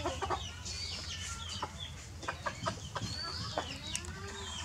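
Chickens clucking, with short high chirps scattered through, over a steady low hum.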